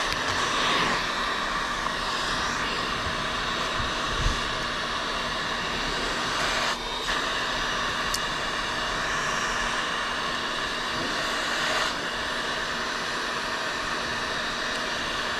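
Hot-air heat gun running steadily, its fan and blowing air making an even whooshing noise, with a brief dip about seven seconds in.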